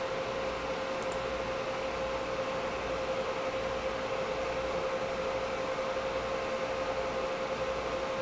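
Twin cooling fans of an ASUS GTX580 DirectCU II graphics card running at a high manual fan speed, past the 45% mark where they become really audible. The sound is a steady airy rush with a steady hum.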